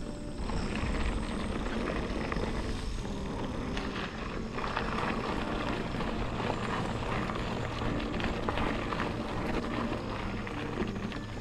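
Mountain bike rolling along a dirt singletrack: a steady wind rumble on the microphone, with tyre noise and frequent short rattles from the bike over the bumps.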